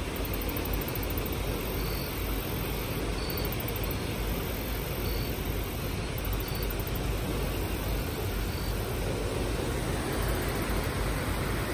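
Steady rush of flowing river water, with a few faint high chirps now and then.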